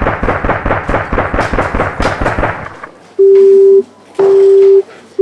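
Rapid automatic gunfire, about eight or nine shots a second, which stops about three seconds in. Then the phone line cuts to a busy tone: three steady beeps about a second apart, the call dropping.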